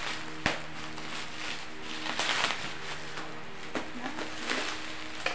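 Plastic bubble wrap crinkling and rustling as it is cut open with scissors. A few sharp clicks come through, the loudest about half a second in, and a longer rustle comes about two seconds in.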